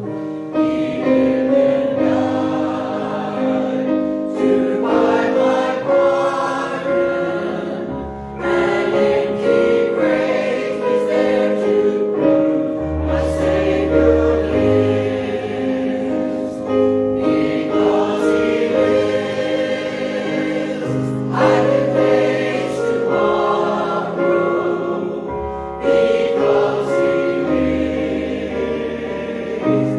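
A congregation singing a hymn together with instrumental accompaniment, in phrases with short pauses between them.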